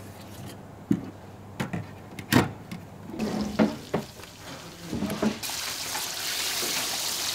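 Sharp clicks and knocks of a metal falafel scoop working a bowl of falafel mix, then, about five seconds in, the steady sizzle of hot deep-fryer oil as the falafel balls go in.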